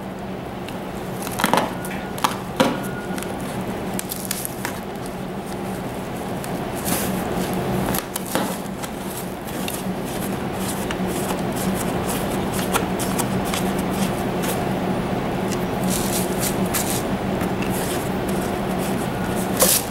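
Handling noise as a power cable is fed through the chair canvas: scattered light clicks and rustling of cable and plastic wrap, over a steady low hum.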